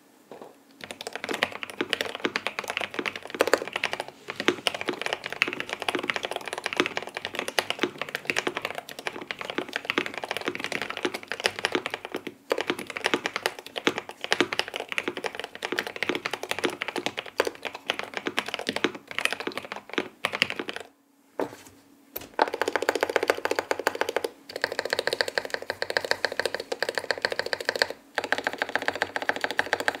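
Fast typing on a Rama Works U80-A Seq2 mechanical keyboard with a brass plate, lightly lubed InfinityKey Cow switches, ePBT keycaps and PE foam and tape mods: a dense stream of keystrokes. There is a short pause a little past twenty seconds, and the strokes come quicker and more even after it.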